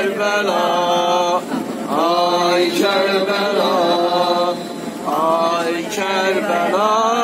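A man chanting a Karbala elegy for Imam Husayn in long, drawn-out notes that waver and bend in pitch, pausing briefly twice between phrases.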